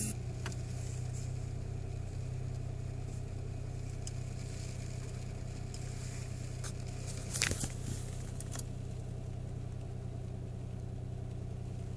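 The small three-cylinder engine of a 2014 Mitsubishi Mirage running with a steady low hum, with a brief rattle about seven and a half seconds in.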